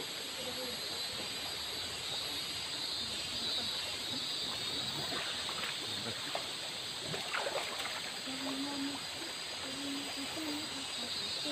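Shallow river flowing steadily over stones and logs, a constant rushing hiss, with a few small splashes and clinks from hands working in the water in the middle.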